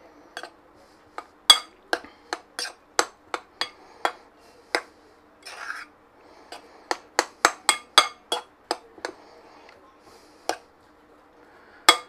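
Metal spoon repeatedly clinking against the side of a glass mixing bowl as mashed potato and butter are stirred together: an irregular run of sharp taps, with a short pause near the end.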